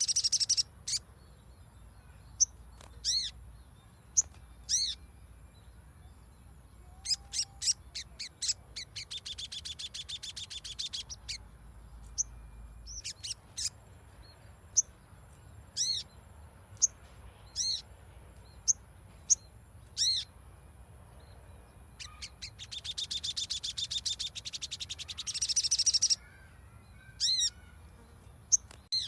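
Sogon (sogok ontong), a sunbird, calling: sharp high single notes every second or two, with two long rapid chattering trills, one about nine seconds in and one near the end. This is the bird's call as played to lure caged sogon into song.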